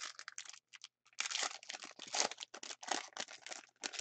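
Foil hockey card pack wrapper being torn open and crinkled by hand, in irregular crackling bursts, with a brief pause about a second in and then steadier crinkling.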